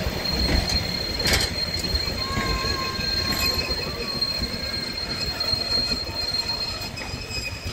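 Wheels of a passing heritage passenger train squealing on a curve: a steady high squeal with fainter lower tones over the rumble of the carriages rolling by. A single sharp click comes about a second and a half in, and the main squeal fades near the end.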